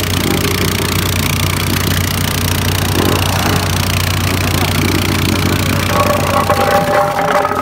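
Vibratory plate compactor running steadily, its engine and vibrating plate working over a patch of freshly laid asphalt mix to compact a pothole repair.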